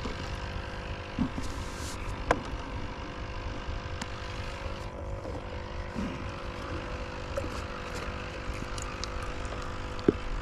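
A steady low motor hum, with a few sharp clicks over it, the loudest near the end.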